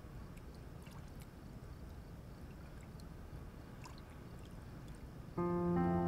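Faint bathwater sounds: small drips and gentle sloshing over a low steady hiss. Background music with long held notes comes in suddenly near the end.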